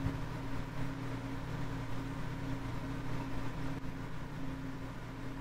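A steady machine hum with an even hiss over it, unchanging throughout.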